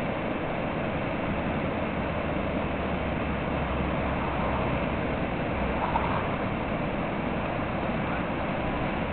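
Steady rush of river water pouring over a whitewater rapid, an even roar.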